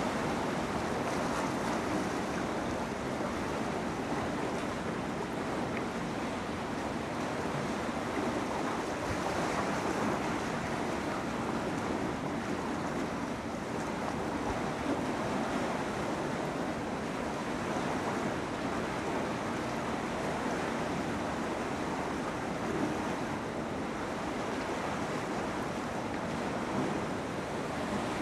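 Steady rushing noise of wind on the microphone, even throughout, with no distinct sound from the distant freight train.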